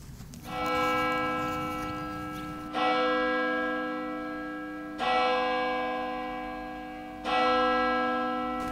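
Church bell tolling slowly: four strokes about two and a quarter seconds apart, each ringing on and fading away before the next.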